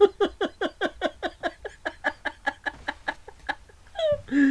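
A man laughing in a fast, even run of short 'ha' sounds, about seven a second, each dropping in pitch, trailing off after about three and a half seconds.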